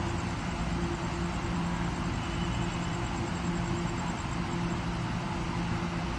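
A train standing at a station platform, giving a steady low hum over a constant rushing noise from its running equipment.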